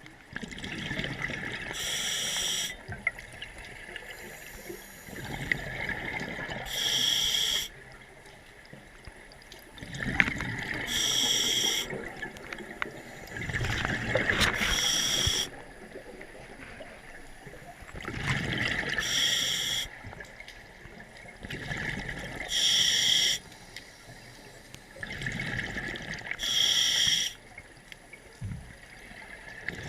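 Scuba diver breathing through a regulator underwater, a breath about every four seconds: exhaled bubbles gurgling, then a hissing inhale of about a second through the second stage.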